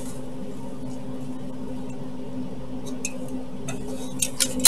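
Light clicks and taps from handling a tower CPU cooler's plastic fan and parts, with a few sharp clicks in the last second or so, over a steady low hum.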